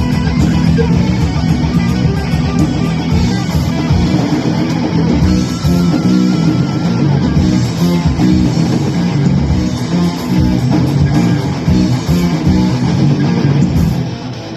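Live rock band playing a loud, guitar-driven song, with electric guitar and bass guitar; the level dips briefly near the end.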